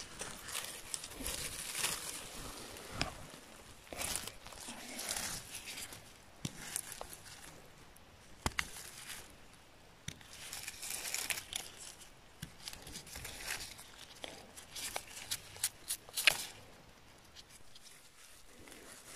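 Gloved hands rustling and crackling through dry moss, twigs and leaves of the forest floor while picking and cutting chanterelles, in irregular bursts with sharp snaps and clicks.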